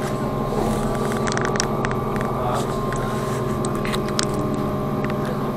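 Inside a moving trolleybus: the steady electric hum of its drive, with several held tones, and scattered light clicks and rattles.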